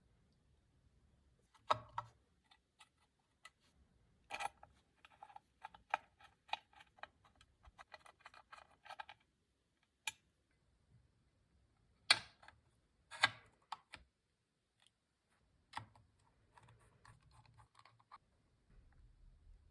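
Typing on a Zoom65 v3 custom mechanical keyboard with lubed, filmed KTT Hyacinth switches, a POM plate and PBT Cherry-profile keycaps. A few loud single keystrokes stand apart, with a quick run of typing about four to nine seconds in and lighter typing near the end.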